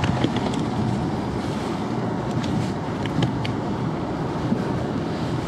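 Steady wind noise on the microphone mixed with water washing against a boat hull, with a few faint clicks.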